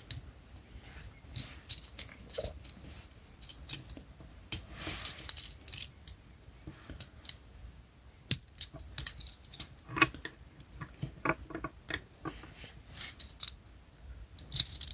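Plastic Transformers action figure being transformed by hand: irregular sharp clicks and snaps of its plastic joints and parts, with a brief rustling scrape about five seconds in.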